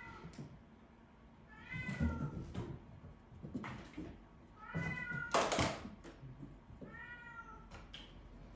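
Turkish Van kitten meowing three times, short high calls a couple of seconds apart that fall in pitch at the end. A little past halfway comes a brief, louder burst of noise, the loudest sound in the stretch.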